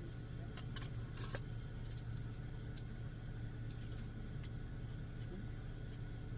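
Scattered light clinks and scrapes of eating utensils on dishes, a cluster about a second in, over a steady low hum.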